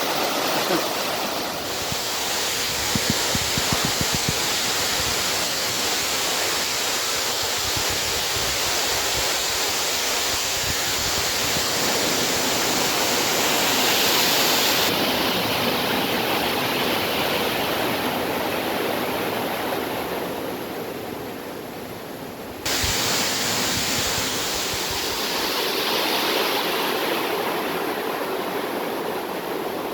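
Mountain valley stream rushing over rocks: a loud, steady water noise. Its character changes abruptly about halfway through and again near three-quarters of the way, after growing quieter just before the second change.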